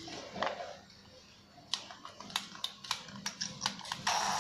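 A dozen or so sharp clicks and taps as the opened cordless drill's motor, gearbox and switch are handled. Near the end the drill's small DC motor switches on suddenly and runs steadily with a high whine, a test run of the motor.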